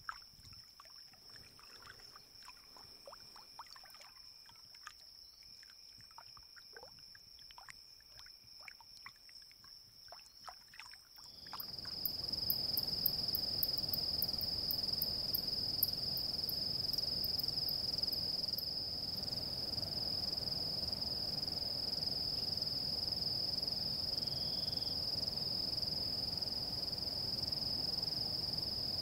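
Insects holding a steady high-pitched drone, with scattered faint clicks and ticks. About eleven seconds in, a sudden change to a louder recording where the drone is stronger over a steady rushing noise, with a run of very high, quick chirps.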